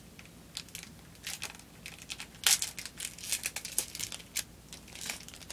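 Wrapper of a trading card booster pack crinkling and tearing as it is pulled open by hand, in irregular crackles with the loudest about halfway through.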